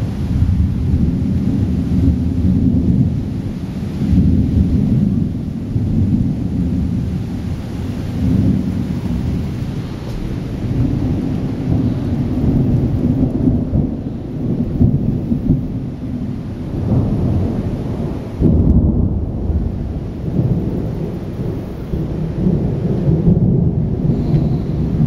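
Thunder rumbling and rolling in long, surging waves during a thunderstorm, with rain falling. A heavier rumble builds about two-thirds of the way through.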